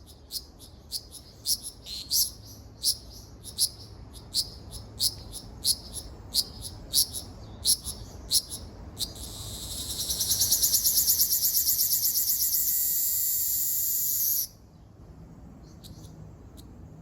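Ryukyu aburazemi cicada (Graptopsaltria bimaculata) singing. It gives a string of short chirps, about one and a half a second, then breaks into a loud continuous buzz for about five seconds that cuts off suddenly.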